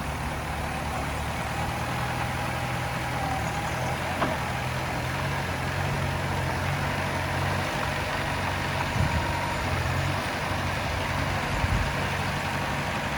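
Heavy-equipment diesel engine running steadily at a low, even idle, with a few scattered knocks.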